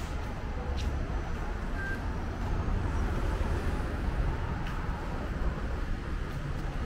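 Steady low rumble of city road traffic and buses, with a few faint clicks.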